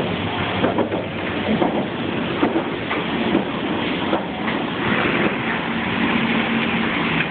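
A vehicle engine running steadily under a loud rush of water spraying and splashing up beside it, with a few knocks as the machine jolts.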